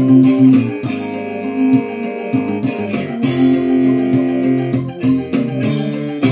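Instrumental backing music of a rap track: plucked-string melody notes over a steady bass line.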